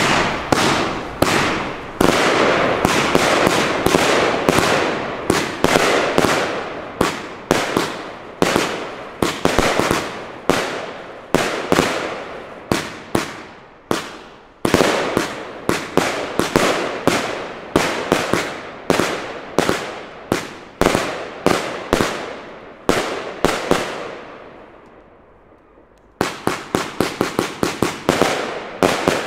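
Riakeo Exodus firework compound cake firing: a long run of sharp launch and burst bangs, about one or two a second, each fading away. The firing dies down to a short lull, then a fast volley of quicker shots follows near the end.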